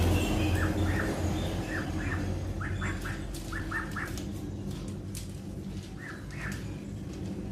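Young domestic duck peeping: short, high calls in quick runs, most of them in the first few seconds and a couple more near the end, over a steady low hum.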